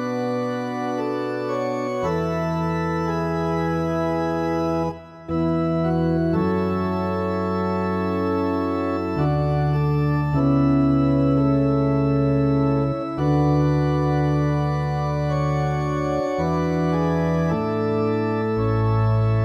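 Organ accompaniment for a responsorial psalm verse, with no voice: held chords that change every second or two, with a brief break about five seconds in.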